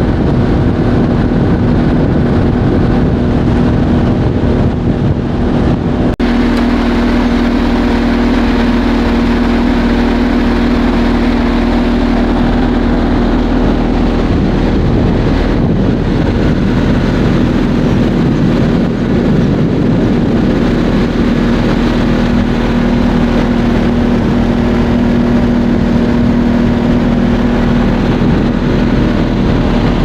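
Speedboat engine running at a steady pitch, heard from on board, with the rush of wind and water. The sound changes abruptly about six seconds in, then runs on steadily.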